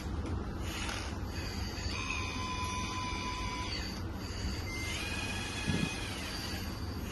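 Kabolite K966 1/16-scale hydraulic RC wheel loader running: a steady low hum with two whines from the hydraulic drive, each holding pitch and then bending away, and a short thump near the end of the second.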